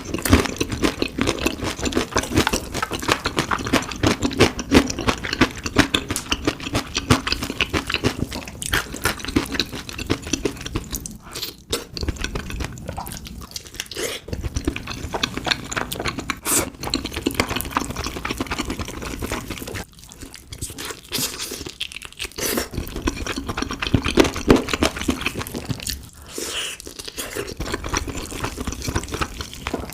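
Close-up crunching and chewing of fried chicken: rapid crisp crackles of the fried coating between the teeth, with a few brief pauses.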